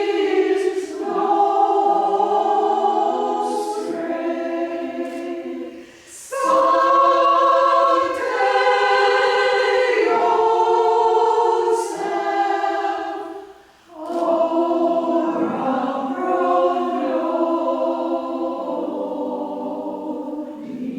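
Choir singing a sung piece in sustained phrases, with brief breaks between phrases about six and fourteen seconds in.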